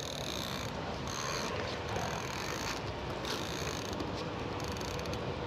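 Fixed-spool carp reel being cranked, its gears turning steadily as line is wound back in after a cast, with a hiss that comes and goes about once a second.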